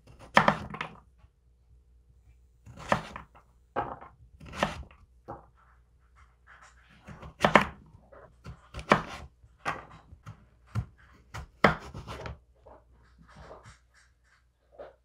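Chef's knife chopping through stacked cubes of raw butternut squash and knocking on a wooden cutting board, about a dozen irregular cuts with short scrapes between them. The cuts grow faint near the end.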